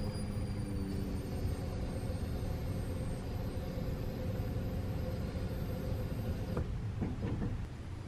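In-tank electric fuel pump of a 1990 Saab 900S running as it is primed to pressurise the fuel lines: a steady hum with a faint high whine, stopping about six and a half seconds in.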